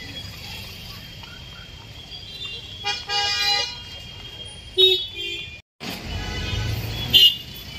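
Vehicle horns honking in jammed road traffic: one long honk about three seconds in, two short ones a little before six seconds, and another near the end, over steady street noise.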